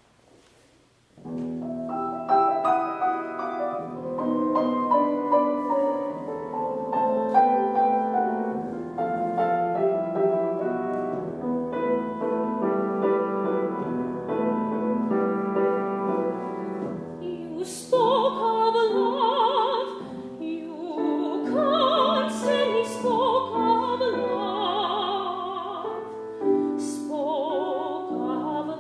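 A piano begins playing about a second in, alone at first; past the middle a soprano enters, singing with vibrato over the piano accompaniment.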